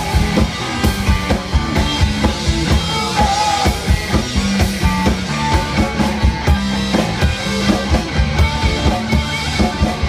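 Live rock band playing, with a drum kit keeping a steady beat under electric and acoustic guitars.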